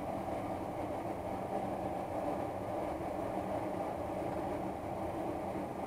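Steady machine hum with a few even tones in it, unchanging throughout.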